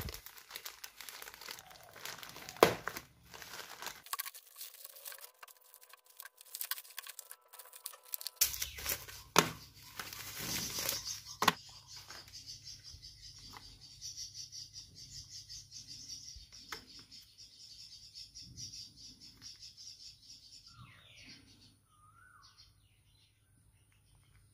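Plastic courier bag crinkling and tearing as it is cut open with a knife, then plastic lure packaging being handled, with a few sharp clicks and snaps in the first half.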